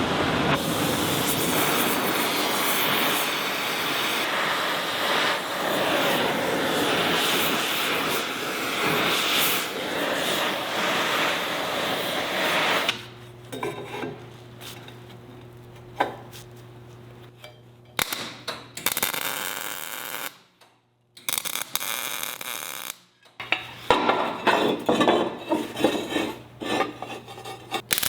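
Metal fabrication sounds: a long stretch of steady, loud cutting or grinding noise, then after about thirteen seconds a run of separate clanks and knocks of steel being handled, with a low machine hum in places.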